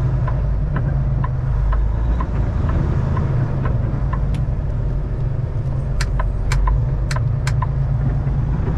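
Semi truck's engine and road noise heard from inside the cab while driving, a steady low rumble. Faint regular ticking about twice a second, and a few sharp clicks near the end.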